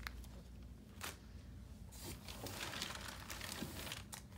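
Plastic packaging crinkling and rustling as hands rummage through a box of bagged pins, with a couple of light clicks in the first second and a longer, denser stretch of rustling in the second half.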